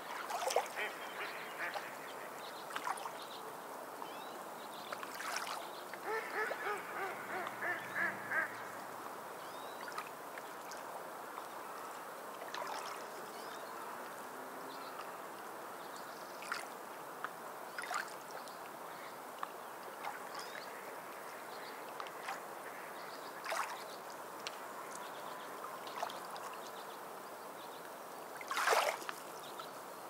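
Waves washing over a pebble shore in a steady hiss, with seabirds calling over it: scattered short calls and a run of quick, repeated calls about six seconds in. A short, louder burst near the end.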